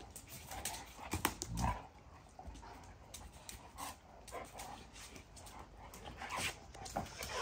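Two Presa Canario dogs play-fighting: scattered brief dog noises and scuffling, with a few sharp clicks about a second in.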